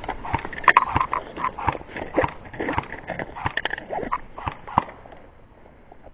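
Running footsteps, about three a second, with hard breathing, slowing to a stop about five seconds in.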